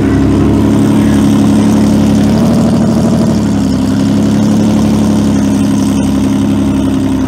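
Drag car engine idling loudly and steadily at the starting line, its pitch wavering briefly about two and a half seconds in.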